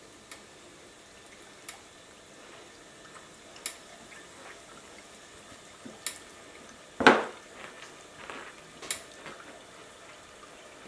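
Chicken wing frying in a pot of hot oil: a faint, steady sizzle with small crackles and pops. A single short thump about seven seconds in is the loudest sound.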